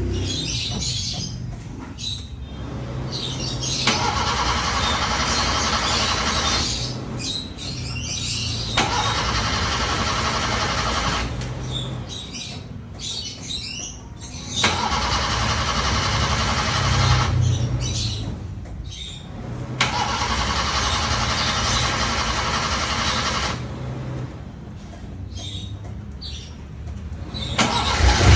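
Toyota Starlet KP61 engine being cranked by its starter after sitting unused for a long time: four long bursts of cranking with pauses between them, then the engine catches and runs up loudly right at the end.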